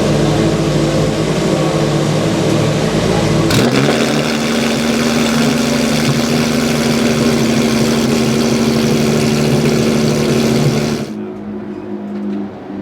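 Track-only hypercar engine running loud at high, steady revs, with a sharp crack and a change in note about three and a half seconds in. Near the end the note falls away and the sound gets much quieter, as when the throttle is lifted.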